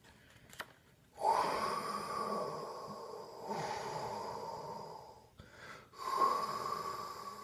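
A person imitating the wind with the voice: a long breathy, howling whoosh lasting about four seconds, then a second one starting about six seconds in.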